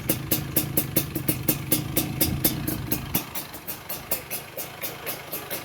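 Yamaha DT175 two-stroke single-cylinder engine idling, with a regular high ticking about five times a second. The deeper engine sound drops off about three seconds in.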